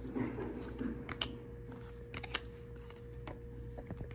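Baseball trading cards handled by hand: card stock rustling as they are flipped through during the first second, then light clicks and taps as cards are laid down on a wooden table, over a faint steady hum.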